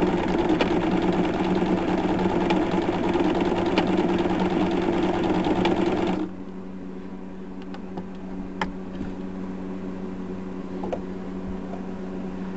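Old electric sewing machine running at full speed, stitching steadily, then stopping suddenly about six seconds in; a quieter steady hum remains, with a single click a couple of seconds later. It is the first run of a salvaged machine, and it works.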